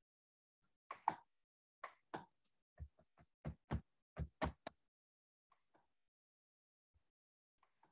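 A quick run of about a dozen short taps over about four seconds, the later ones with a dull low thud.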